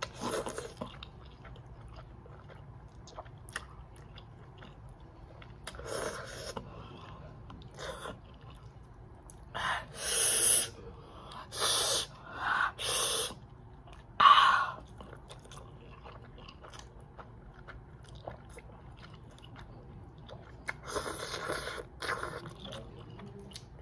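A person eating extra-spicy instant noodles: chewing, broken by a series of short, loud slurps and sharp breaths as the chili burns. The bursts are thickest from about ten to fifteen seconds in, with a few more near the end.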